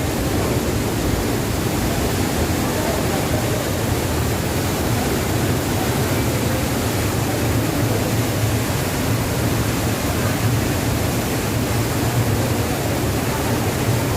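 Water of a small waterfall falling and splashing, a steady rush.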